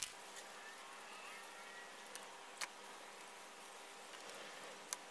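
Quiet room hum with a few soft clicks as a hot glue gun and stiff cardstock strips are handled.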